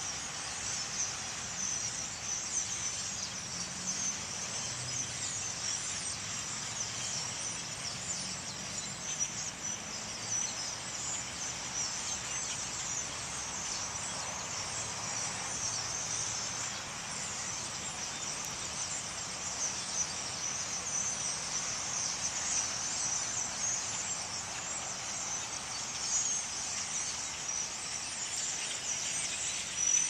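Huge flock of blackbirds passing overhead: thousands of calls blending into one steady, high-pitched chattering din.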